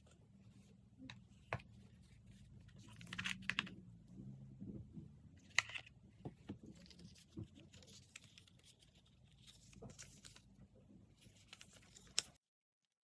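Hands handling an iPhone 14 Pro Max and its packaging, with rustling and scattered clicks and taps, a few of them sharp. The sound cuts off suddenly near the end.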